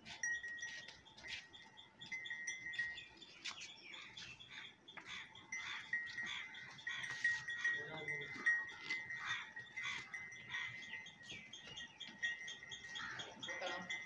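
Farm animals calling, one call about eight seconds in and a rising call near the end, over repeated high chirps and small clicks.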